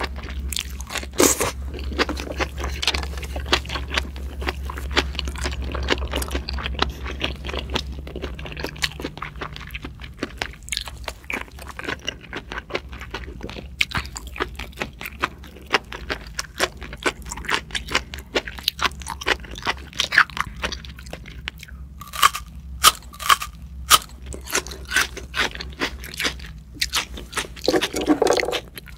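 Close-miked chewing of raw scallop sashimi: wet, continuous mouth sounds of chewing and biting with many quick clicks, a few sharper ones about three quarters of the way in. A short hum near the end.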